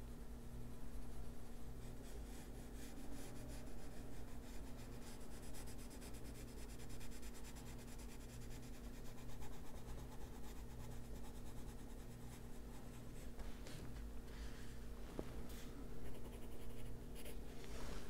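Faber-Castell Polychromos coloured pencil shading on a colouring-book page: faint, quick scratching strokes, a little stronger near the end, over a steady low hum.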